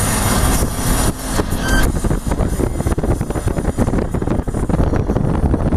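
Steady road and engine rumble of a moving car heard from inside the cabin, with wind buffeting the microphone.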